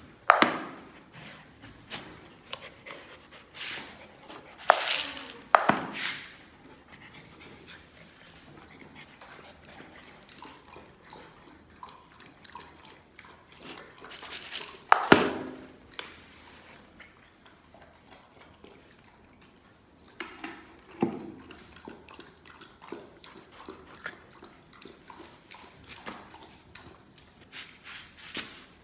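A dog making short sounds at intervals, a few of them loud and sudden among quieter ones, the loudest about halfway through.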